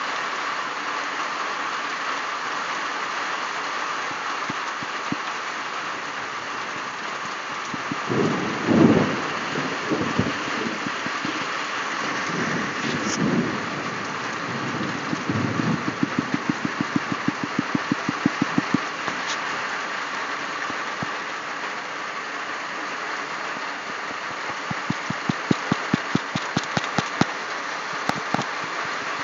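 Heavy rain falling steadily. Several low rumbles come about a third of the way in, and there are two bursts of rapid, even tapping, one just past the middle and one near the end.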